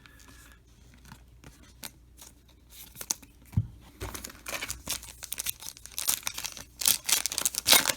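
A Topps trading-card pack wrapper being torn open, the wrapper crinkling and tearing easily. A few light handling clicks at first, then dense crinkling and tearing from about halfway in, loudest near the end.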